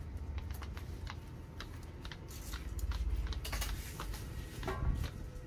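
Irregular light clicks and taps, like keys or small objects being handled, over a steady low hum.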